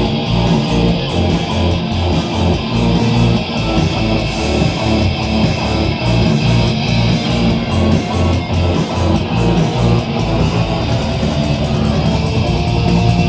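Rock band playing live: electric guitar over a drum kit keeping a steady, fast beat of cymbal and drum hits.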